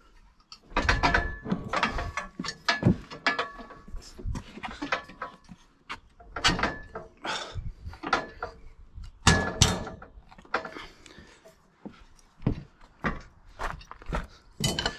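Steel sawmill sawhead brackets knocking, clanking and scraping against each other as they are forced into position to line up their bolt holes. The knocks are irregular, and some leave a short metallic ring.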